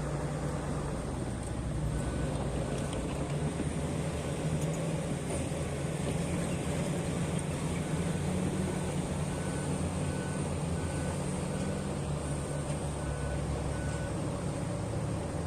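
Heavy diesel mining machine running steadily under load, with its reversing alarm beeping at an even pace: a few beeps, a pause, then a long regular run of beeps that stops near the end.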